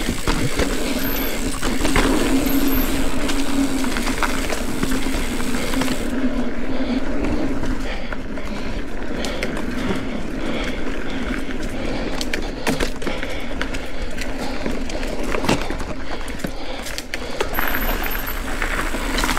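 Ibis Ripley mountain bike being ridden along a dirt trail: tyres rolling over dirt and rock, with rattles and sharp knocks from the bike throughout.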